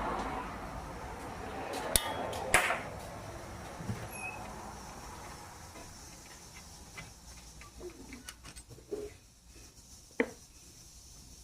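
Small metallic clicks and knocks of a wrench and the oil filter housing bolts as they are backed out and handled. A steady rushing background noise fades away over the first half.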